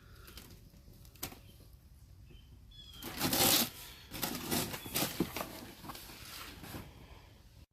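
Unboxing packaging being rustled and handled. There is a small click about a second in, a louder rustle about three seconds in, then a string of shorter crinkles and light knocks.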